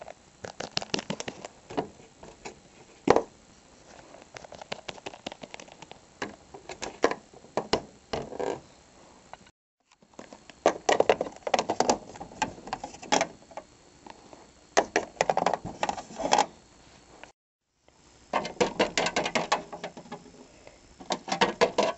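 Small plastic Littlest Pet Shop figurines hopped by hand along toy-house floors: quick runs of light clicks and taps in bursts, with one sharper knock about three seconds in. The sound cuts out to silence twice.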